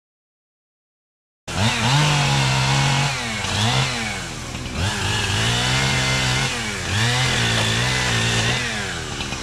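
Chainsaw engine running at high revs, starting suddenly about a second and a half in; its pitch repeatedly sags and recovers as the chain cuts into wood under load.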